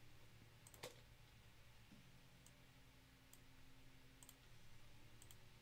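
Near silence with a few faint, sharp clicks from a computer being worked, the loudest about a second in, over a low steady room hum.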